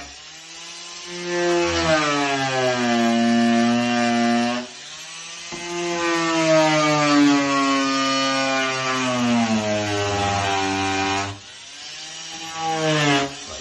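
A power tool cutting into the wall to make the hole for a light switch back box. The motor runs in three bursts, its pitch sagging and recovering as the cut loads it.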